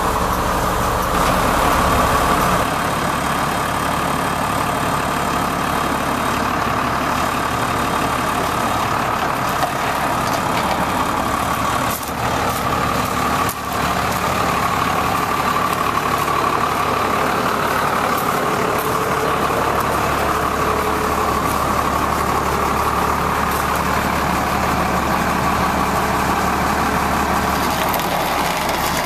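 A Cummins 5.9-litre inline-six diesel engine in a Ford F800 truck idling steadily.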